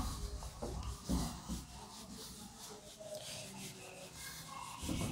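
A handheld duster rubbing across a whiteboard in repeated strokes, wiping off marker writing.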